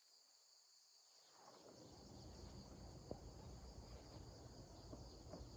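Faint, steady insect chorus of high trilling, with a low background rumble that comes in after about a second and a half and a single faint tick near the middle.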